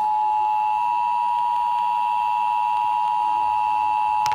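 Emergency Alert System two-tone attention signal, two tones sounding together in a steady, unbroken beep, relayed by a broadcast station for a Required Monthly Test. A sharp click comes right at the end.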